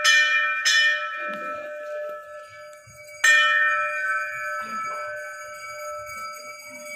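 Temple bell struck twice in quick succession near the start and once more about three seconds in, each strike ringing on and slowly fading.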